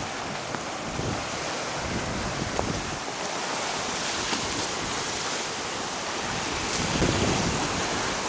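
Ocean surf washing and breaking around rocks along the shoreline, a steady rush of water, with wind buffeting the microphone in low rumbling gusts that get stronger near the end.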